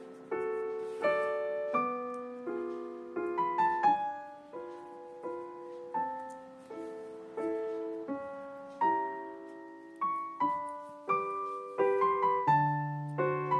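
Background piano music: gentle notes struck and fading, played at a slow, even pace.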